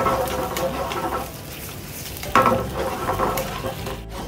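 Mushroom and onion sauce sizzling in a frying pan while metal tongs stir it. The tongs scrape and clack against the pan, loudest right at the start and again about two and a half seconds in.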